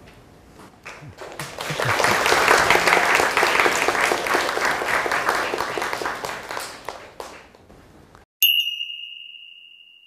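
An audience of students applauding for about six seconds, swelling and then fading out. Near the end, after an abrupt cut to dead silence, a single bright ding rings out and fades.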